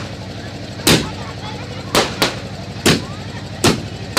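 Aerial fireworks exploding in a rapid series: about five or six sharp bangs, roughly one a second, with two close together in the middle, each followed by a short rumbling echo.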